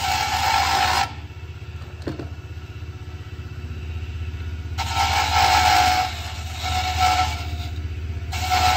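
Benchtop wood lathe motor humming steadily while a hand-held turning tool cuts detail into the spinning wooden pen blank. The cutting comes as rasping, scraping bursts, one at the start and several more from about five seconds in, with a quieter stretch of motor hum between them.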